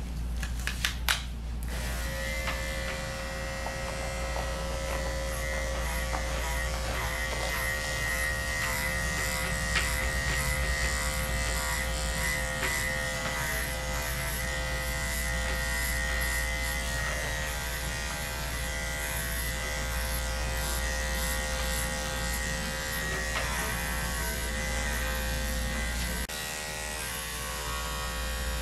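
A few sharp clicks, then an Andis electric dog clipper fitted with a #7 blade switches on about two seconds in. It runs with a steady buzz as it shaves through the dog's coat, and its tone drops slightly near the end.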